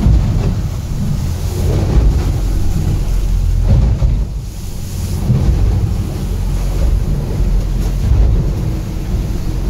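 Aluminium catamaran running fast through a rough sea, heard from inside the cabin: a heavy low rumble of hull, water and wind. It swells into louder thumps every second or two as the boat meets the waves.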